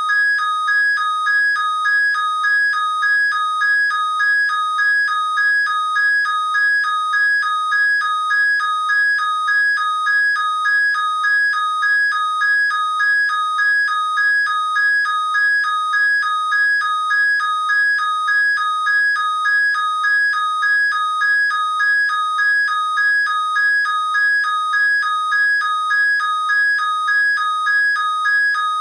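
Alarm clock sounding continuously: two high tones alternating rapidly, the pattern pulsing about once a second.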